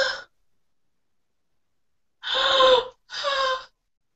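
A woman's delighted gasping exclamations: two short, high-pitched cries a little over two seconds in, each falling slightly in pitch, heard over a video-call line that drops to total silence between sounds.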